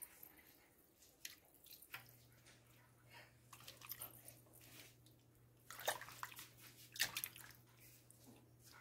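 A spoon stirring a pot full of broth, giving faint sloshing and swirling of liquid, with a couple of louder splashes about six and seven seconds in. A faint steady low hum starts about two seconds in.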